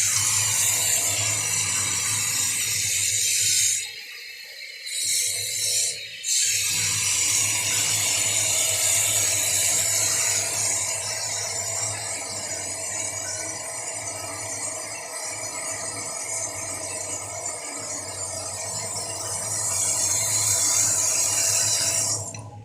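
Water running from a newly fitted wall-mounted sink mixer tap in a steady hiss. It stops briefly about four seconds in and again just after six seconds, as the tap is shut and reopened.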